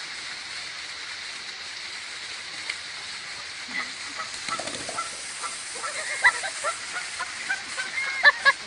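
Goose honking in a run of short, harsh calls that begin about four seconds in and grow louder and more frequent toward the end, over a steady background hiss.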